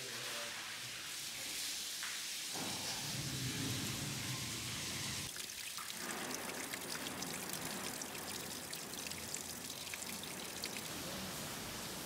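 Water running and trickling over wet cobbles and into a gutter drain. The sound shifts abruptly about 2.5 s and 5 s in, and from then on it becomes a dense patter of small drops and spatter.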